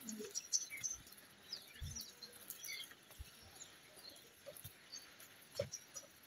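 Faint farmyard ambience: small birds chirping in short, scattered calls, with a few soft thumps and a sharper knock near the end.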